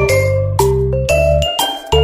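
Background music: a light tune of short bright notes over a steady bass line, with the notes changing about every half second.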